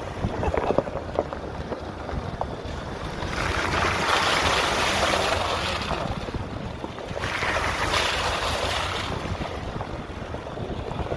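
Wind buffeting the microphone, swelling louder twice, over the Land Rover Discovery's tyres rolling along a gravel track, with a few stones crackling under the tyre about a second in.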